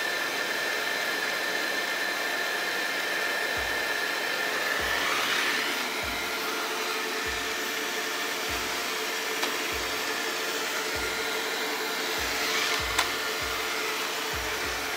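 Xiaomi Mi Robot Vacuum Mop Essential (MJSTG1) running a cleaning pass, a steady whir of its suction fan and brushes with a high whine in the first few seconds. From about four seconds in, low thuds come roughly once a second, and there is a single click near the end.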